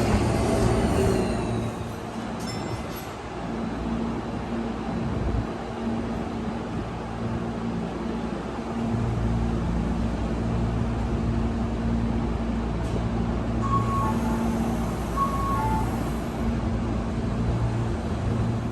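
Electric commuter train: its motor whine falls away in the first couple of seconds, then the train gives a steady low hum, with a few short beeps near the end.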